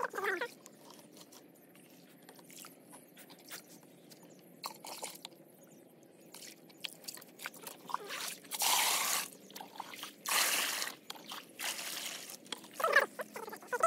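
Hands stirring and squeezing a wet mixture in a plastic bucket of water: small drips, squelches and clicks. In the second half, liquid is poured from the bucket into a plastic drum in a few splashing gushes.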